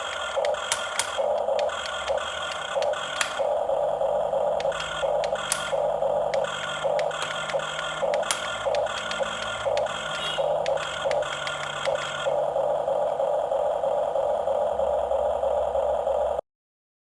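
Huina 554 radio-controlled toy bulldozer running: a mid-pitched whine that starts and stops in short spurts, with sharp clicks and rattles. Near the end the whine runs on without a break for a few seconds, then cuts off suddenly.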